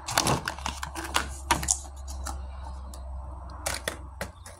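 Thin plastic food packaging being handled: the clear clamshell lid and tray crackle and click in a quick run over the first couple of seconds, with a few more clicks near the end. A steady low hum runs underneath.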